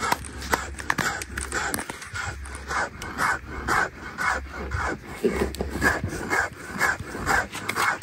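Flour being ground by hand on a grinding stone: the upper stone scrapes back and forth over the lower one in a steady rhythm of about two strokes a second.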